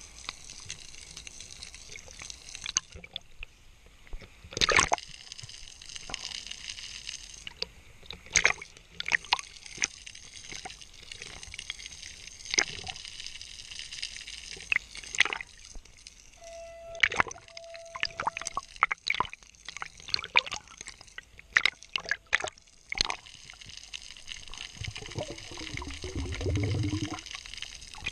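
Underwater sound picked up by a camera while freediving: water swishing, with many scattered sharp clicks and pops. Near the end there is a wavering low gurgle.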